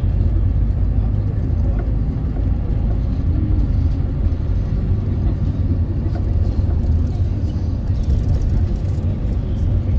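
Steady low engine and road rumble of a moving road vehicle, even throughout.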